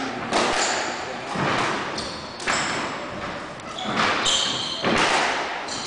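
Squash rally: the ball is struck by rackets and smacks off the court walls about once a second, each hit ringing in the enclosed court. Sneakers squeak briefly on the wooden floor a couple of times.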